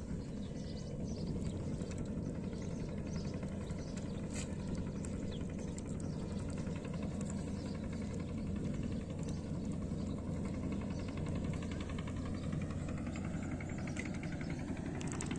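An engine running steadily at low speed, a low even hum with no change in pitch.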